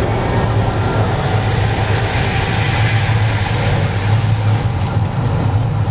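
Mirage volcano attraction: a loud, steady low rumble under an even rushing hiss.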